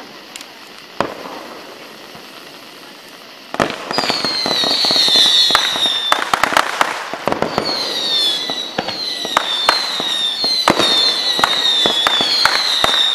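Fireworks going off: a couple of single bangs, then from about three and a half seconds in a dense barrage of crackling reports with repeated high whistles that slide down in pitch.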